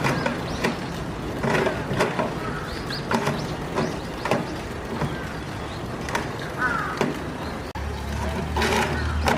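Busy outdoor background with irregular sharp knocks and clicks about once a second and faint distant voices; a steady low hum starts near the end.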